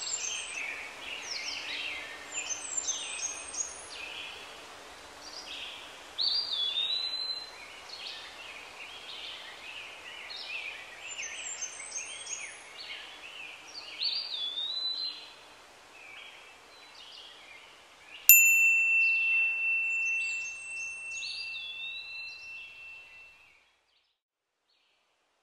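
Songbirds singing repeated phrases of quick high chirps and a whistled note. About three quarters of the way in, a single bell-like chime is struck and rings on one clear tone, fading away over about five seconds.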